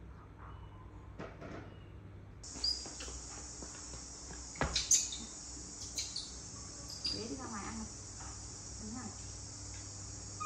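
Steady high-pitched chirring of insects that sets in a couple of seconds in, with a few sharp knocks near the middle.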